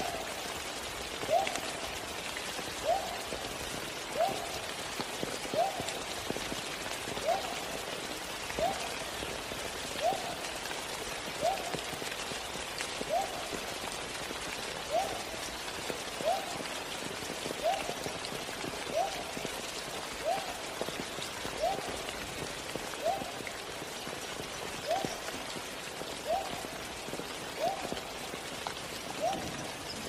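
Steady rain falling. Over it, a short rising note repeats at an even pace, about once every second and a half.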